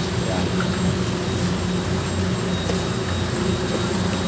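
Steady low hum of an engine running on board a moored fishing boat, even and unchanging.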